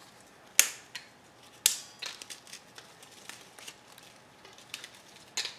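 Graham crackers being snapped and crumbled by hand. Two sharp cracks come about a second apart near the start, then light crackling, then another crack near the end.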